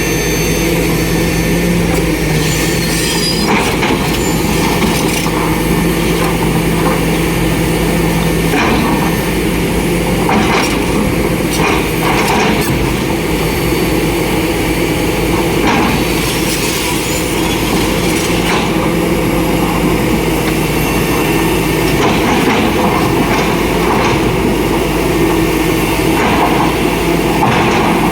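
Komatsu hydraulic excavators' diesel engines running steadily under load, a constant drone broken every few seconds by short knocks.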